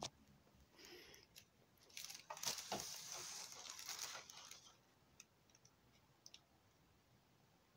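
Thin plastic carrier bag crinkling and rustling as a cat thrashes inside it and wriggles free, loudest from about two to four and a half seconds in, with a few soft knocks from the cat on the wooden floor; then only faint ticks.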